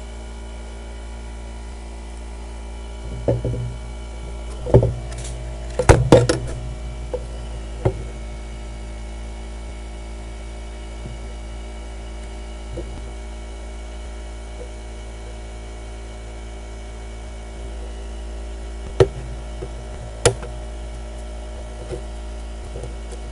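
Steady electrical hum from the bench equipment, with a few sharp knocks and clicks of things being handled on the workbench: a cluster a few seconds in and two more near the end.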